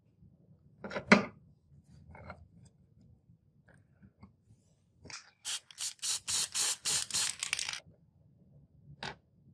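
A sharp metallic click about a second in, then a quick run of about ten short hisses from an aerosol can of black spray paint over two seconds, as a metal part is spray-painted.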